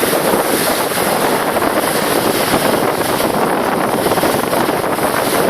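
Steady loud rush of wind on the microphone and water rushing past a moving water taxi.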